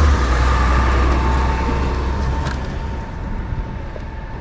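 A motor vehicle running, its low rumble fading steadily as it moves away.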